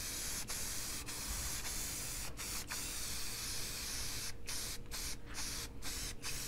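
Aerosol spray-paint can hissing as white paint goes onto a cut-metal sign, stopping for a moment several times as the nozzle is let up, most often near the end.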